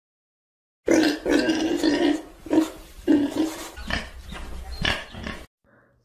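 A pig grunting in a run of rough grunts, starting about a second in and stopping just before the end, a farmyard pig sound effect.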